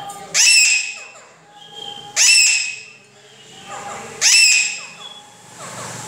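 Parakeets calling: three loud, high-pitched calls about two seconds apart, each about half a second long, with fainter sounds between them.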